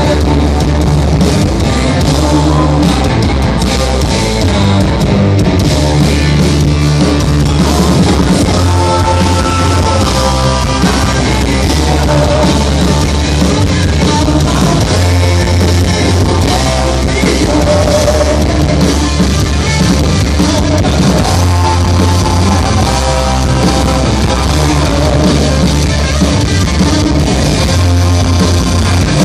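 Hard rock band playing live at full volume through a club PA: distorted electric guitars, bass and drums, with a steady heavy low end, heard from the audience.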